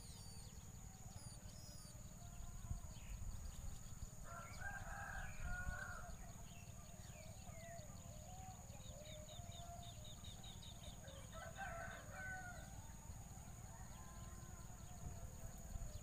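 A rooster crows twice in the background, each crow about two seconds long, the second about halfway through. Faint short bird chirps are scattered between the crows, over a steady high-pitched whine and a low rumble.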